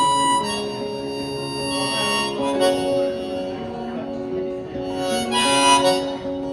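Harmonica playing the song's instrumental intro: a melody of held notes and chords that change every half second or so.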